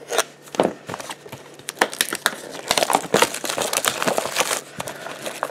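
Plastic shrink-wrap on a trading-card booster box crinkling and tearing as it is pulled off, in quick irregular crackles that are busiest through the middle.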